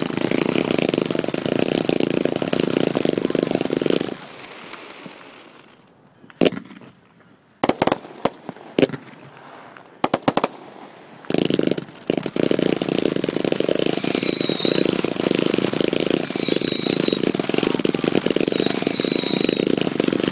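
Fireworks going off: a dense run of rapid crackling shots that stops about four seconds in, then a few single sharp bangs, then dense rapid crackling again from about eleven seconds in. Near the end a short falling whistle repeats about every two and a half seconds.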